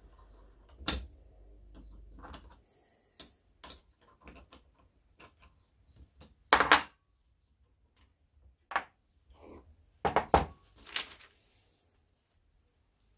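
Scattered metallic clicks, clinks and knocks as a ring spanner works the brake lever pivot nut off a Honda CB750 front brake master cylinder and the lever and spanner are set down. There is a loud clatter about six and a half seconds in and a quick cluster of knocks at about ten seconds.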